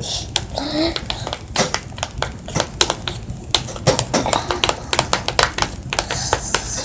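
A utensil clicking and scraping against a bowl while a slime mixture with shaving cream is stirred: irregular quick taps, several a second.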